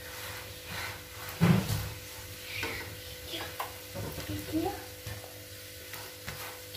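A nylon spatula pressing and scraping a wheat-flour dosa on a nonstick frying pan, with a light sizzle from the cooking batter. The spatula strokes come as a run of short scrapes and taps, the loudest about a second and a half in, over a faint steady hum.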